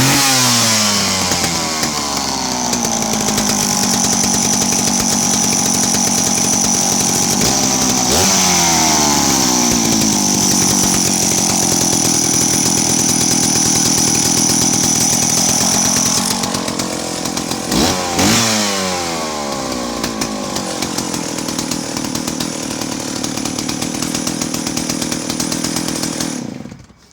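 Stihl 041 chainsaw's two-stroke engine catching on the pull and running, its revs falling from a high start and settling. It is blipped up and back down briefly at about 8 seconds and again around 17–18 seconds, then cuts off abruptly near the end.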